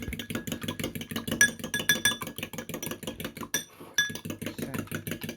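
A fork beating an egg in a bowl: rapid, even clinks of metal against the bowl, about ten a second, with a short pause around three and a half seconds in.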